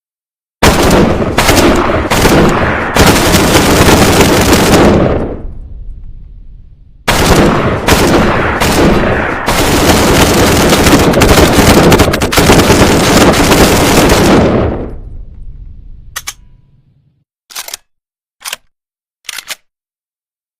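PPSh-41 submachine gun firing long fully automatic bursts: a few short bursts run together into one sustained burst in the first five seconds, and one long burst of about eight seconds starts about seven seconds in. Each burst dies away in an echoing tail. Four short sharp sounds follow near the end.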